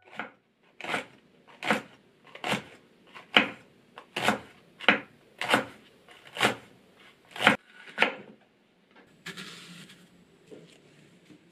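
Kitchen knife slicing a long green onion on a wooden cutting board: about a dozen crisp chops at an even pace, a little over one a second, then a soft brushing sound near the end.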